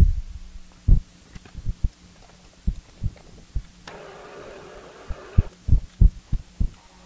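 Hands working at a milling machine vise: a string of irregular low knocks and thumps as metal tools and parts are handled, with a brief rushing hiss about four seconds in, over a faint steady low hum.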